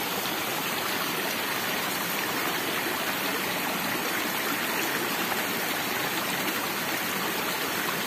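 Water of a rain-fed seasonal creek rushing down a series of small rocky cascades, a steady, even rush.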